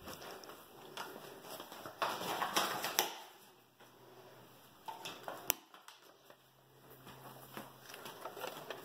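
Quiet footsteps and phone-handling rustle while walking through a room, with scattered clicks; a louder stretch of rustling about two to three seconds in and one sharp click about five and a half seconds in.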